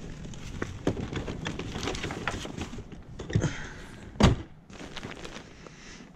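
Knocks and clatter of anchoring gear being handled on a jet ski, with a heavy thunk about four seconds in.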